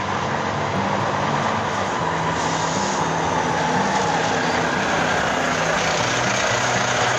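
A Volvo FH articulated lorry pulls slowly past at close range, its engine and tyres running. A music track with a moving bass line plays over it.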